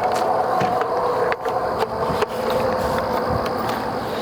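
Spinning-wing dove decoy's electric motor humming steadily, with a few faint clicks.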